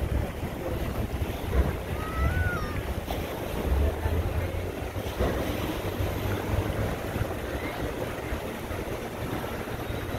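Wind buffeting the microphone over choppy water splashing and lapping, with a faint short chirp about two seconds in.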